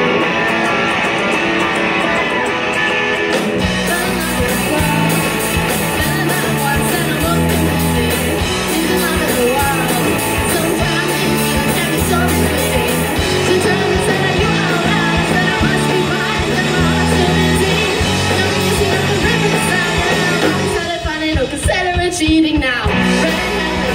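Live rock band, amplified through a PA, with electric guitars, bass guitar, drums and a female lead singer. A guitar plays nearly alone at first, and the full band with bass and drums comes in about three and a half seconds in. Near the end the band drops out for about two seconds, then comes back in.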